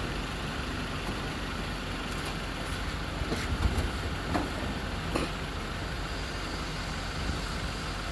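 Steady rumble of an idling truck engine, with a few sharp knocks or clanks around the middle.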